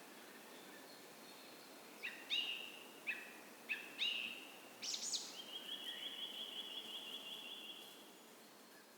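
A songbird singing a phrase of about five loud, quickly slurred notes, then a long, rapid trill that fades out near the end. Beneath it runs a faint, steady rush of a small creek.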